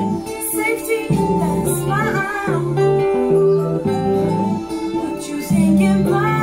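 Electric guitar and acoustic guitar playing a slow song together, with a woman singing short phrases over them.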